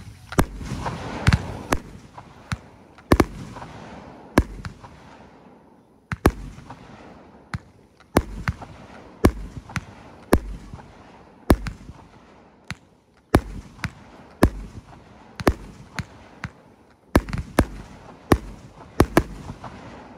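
Hardcore Pyro Bloody Spawn Kill, a 19-shot consumer firework cake, firing shot after shot: very loud, sharp reports about once a second, with a rushing hiss between them in the first two seconds.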